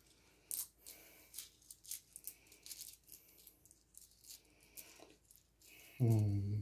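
Small quartz crystals clicking and rattling against each other and the surface as they are picked up and set down, in a string of light separate clicks. Near the end a brief vocal sound, like a hum, cuts in.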